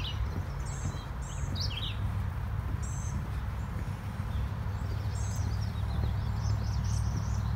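Songbirds chirping and trilling in short, scattered phrases over a steady low rumble of distant road traffic.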